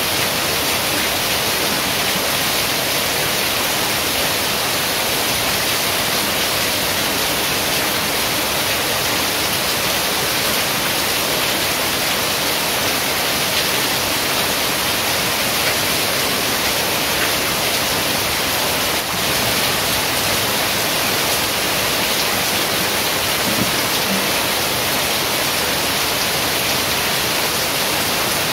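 Heavy rain pouring steadily, an even hiss with no change in level.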